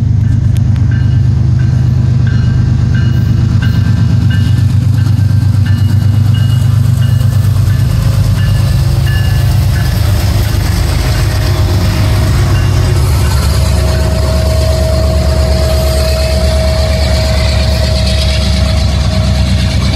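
CSX's GE wide-cab diesel-electric locomotives passing slowly at restricted speed, their engines making a loud, steady low drone. A bell dings at a regular pace through the first half, and a steady whine comes in during the second half.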